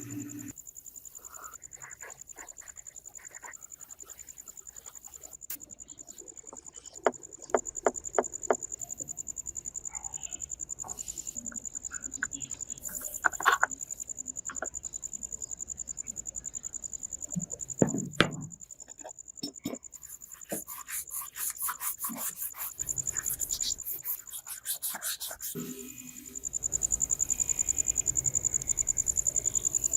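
A cricket chirps steadily, a continuous high pulsing trill, while scattered sharp clicks and knocks come and go, including a quick run of clicks about two-thirds of the way through.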